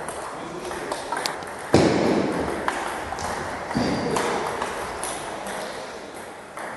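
Table tennis rally: the celluloid ball clicking off rubber paddles and the table at irregular intervals, echoing in a large hall. Two heavier thumps stand out, the loudest about two seconds in.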